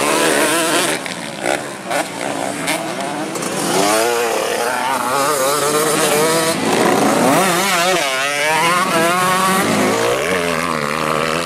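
Several racing dirt-track motorcycles revving hard, their engine pitch rising and falling again and again as the riders work the throttle.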